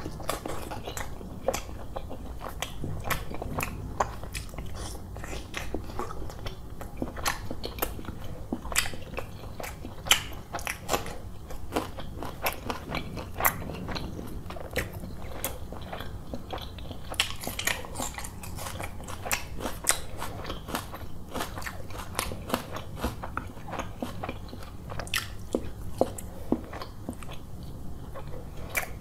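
A man chewing mouthfuls of roti soaked in chicken curry, with frequent sharp, wet mouth clicks and smacks.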